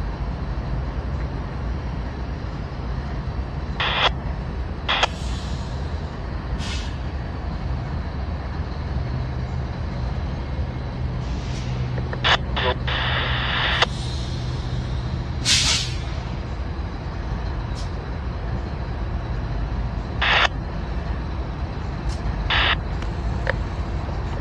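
Norfolk Southern diesel locomotives idling with a steady low rumble, the engine hum a little stronger for a few seconds midway. Short sharp hisses of air break out about eight times, typical of a train's air brake system.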